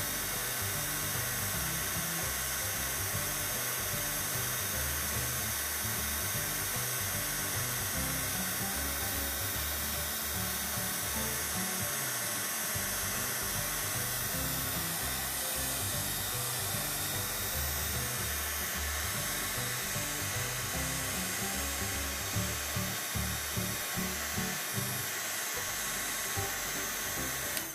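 Chandler Tool embossing heat gun running on its low setting: a steady blower hiss as it melts embossing powder on paper, cutting off right at the end. Soft background music underneath.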